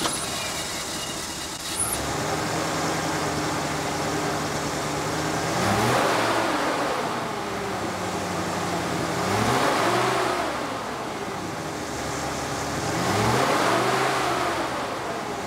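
The 460 cubic inch (7.5-litre) V8 of a 1976 Lincoln Continental Town Car idling steadily. It is revved three times, about four seconds apart, and each rev rises and falls back to idle.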